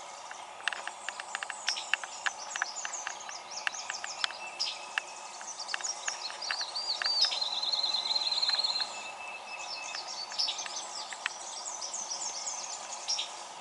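Several songbirds singing and calling: quick high chirps, downward-sweeping notes and sharp ticks throughout, with a rapid trill of evenly spaced high notes lasting about a second and a half, a little past the middle. A steady faint background hiss runs underneath.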